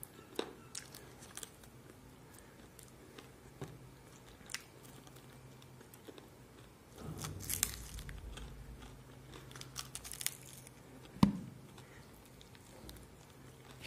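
A person biting and chewing crispy roasted chicken, with scattered small crunches and clicks, a longer, louder stretch of chewing about halfway through and one sharp click late on.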